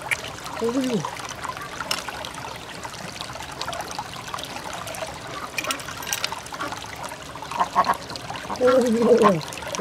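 Wet squishing and small clicks as fingers and a knife work through the soft flesh of opened freshwater mussels, pulling out blue pearls. A short falling-pitched vocal exclamation comes about half a second in, and two more near the end.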